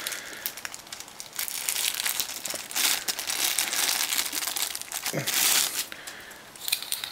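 Plastic packaging of a USB extension cable crinkling and crackling as it is handled and pulled open, in an irregular run of rustles and small clicks.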